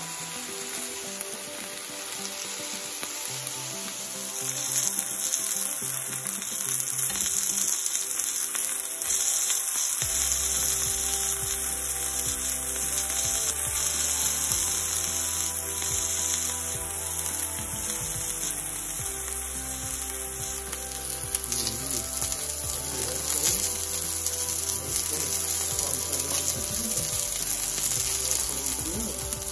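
Marinated chicken tikka pieces on skewers sizzling in a hot ridged cast-iron grill pan, a steady spitting hiss that grows louder about four seconds in.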